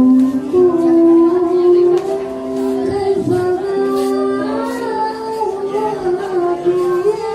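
Voices singing a slow melody with long held notes, heard as music.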